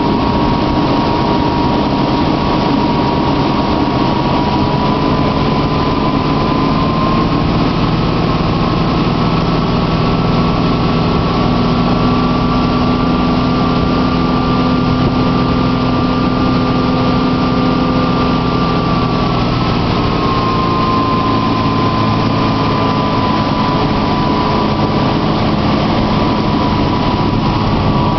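Motorboat engine running at speed while towing, a steady whine that rises a little in pitch about seven seconds in and drops back about twenty seconds in, over a constant rush of wind and churning water.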